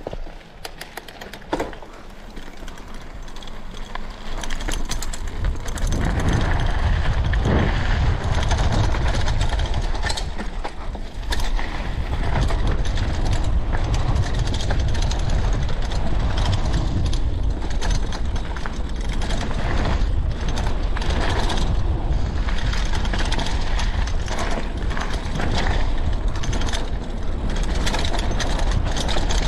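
Mountain bike ridden on a gravel and dirt trail, heard from a handlebar camera: the rear freehub ticking and the bike rattling over stones. From about five seconds in, a loud rumble of wind and tyre noise builds as the bike picks up speed.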